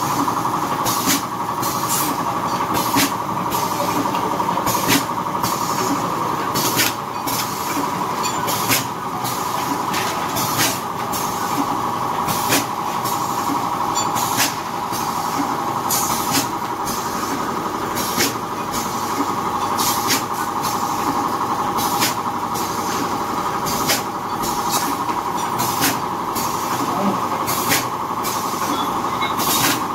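Automatic pouch form-fill-seal packing machine running: a steady motor whine with a short, sharp hiss-clack repeating about once a second as the sealing jaws cycle.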